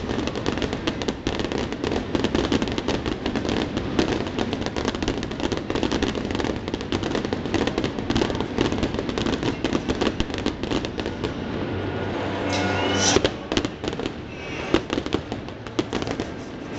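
Fireworks barrage: a dense, rapid run of bangs for about twelve seconds, thinning out to a few separate louder bangs near the end.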